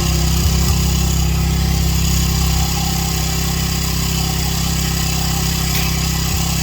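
Pressure washer's engine running steadily at a constant pitch.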